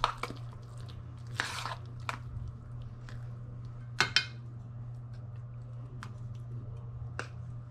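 A spoon scraping and tapping against a stainless steel saucepan as thick grits are scooped out and dropped onto a plate. There are a few separate clinks, the sharpest a quick pair about four seconds in, over a steady low hum.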